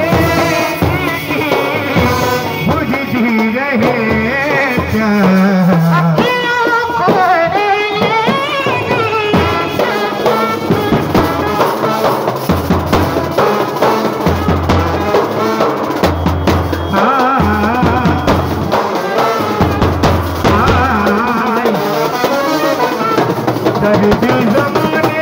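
Indian street band playing a Hindi film-song melody, with a large band drum beating along.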